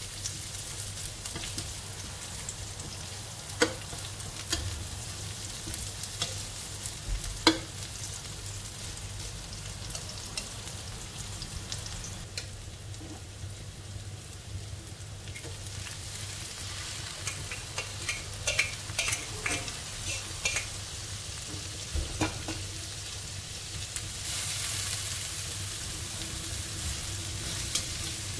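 Sliced shallots sizzling in hot oil in a wok while a spatula stirs them, with occasional sharp taps and scrapes of the spatula against the pan. The sizzle grows louder near the end.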